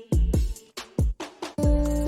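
An electronic beat: deep kick drums that drop sharply in pitch hit several times in quick, uneven succession over light ticking hi-hats. A held bass note comes in about one and a half seconds in.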